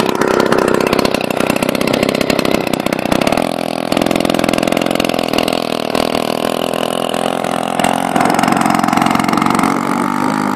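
Two-stroke chainsaw engine of a homemade ice kart running loudly, its speed picking up about eight seconds in as the kart moves off across the ice.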